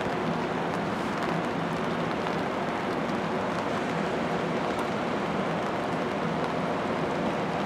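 Steady outdoor background noise: an even rush with a faint low hum running under it, with no separate events.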